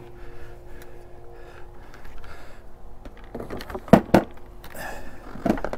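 A few sharp knocks and clicks of something being handled, the loudest two in quick succession about four seconds in, over a faint steady hum.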